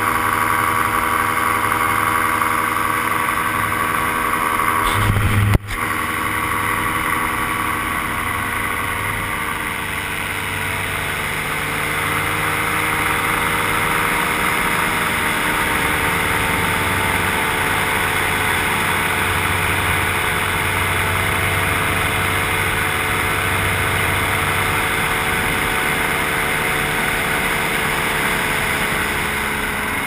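Paramotor engine running steadily in flight, its pitch wavering slightly partway through. A single sharp knock with a momentary dropout comes about five and a half seconds in.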